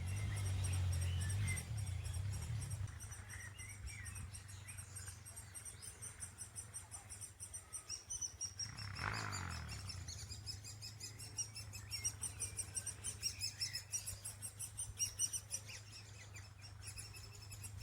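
Woodpecker chicks calling from their nest holes: rapid, high chirps repeating throughout. A brief rush of noise comes about nine seconds in.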